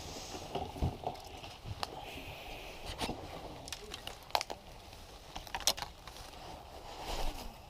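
Fishing rods and tackle being picked up and handled: scattered clicks, knocks and light rattles at irregular intervals.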